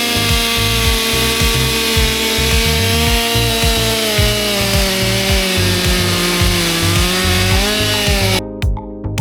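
Chainsaw engine running at full throttle in a long milling cut, its pitch sagging slowly under load, then picking up just before it cuts off about eight seconds in. Background music with a beat plays underneath and carries on alone at the end.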